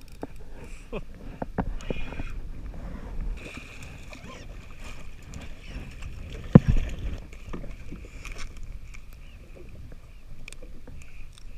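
Small waves slapping and sloshing against the hull of a drifting jet ski, with the clicks of a spinning reel being wound. One sharp, loud knock about six and a half seconds in.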